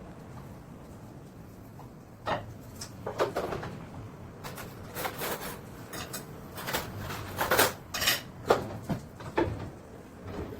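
A series of irregular clinks and knocks, like hard objects being handled, struck or set down, starting about two seconds in, some with a brief ringing tail.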